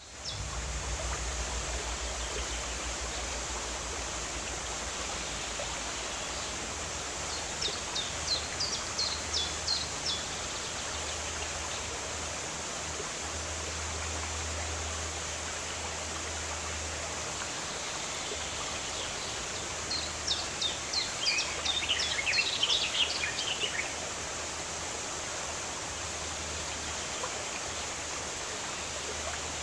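Steady rush of a mountain stream cascading down a waterfall. A bird sings a run of quick, high chirps about eight seconds in, and again, louder, about twenty seconds in.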